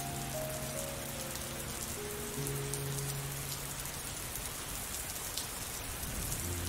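Steady rain falling. Soft, slow background music lies under it: a melody stepping slowly downward over held low notes in the first few seconds, fading out to leave only the rain, with a new phrase starting at the very end.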